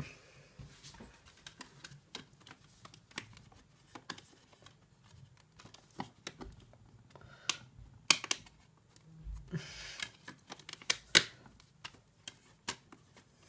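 A multi-disc DVD case being handled: scattered light plastic clicks and brief rustling, the sharpest clicks about six, eight and eleven seconds in.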